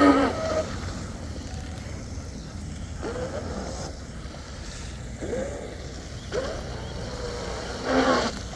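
Brushless motor of a Blackjack 24 RC catamaran heard across the water in several separate short bursts, each rising in pitch, over wind and water noise. The power is cutting in and out, which the owner traces to a corroded receiver connector whose prong had broken.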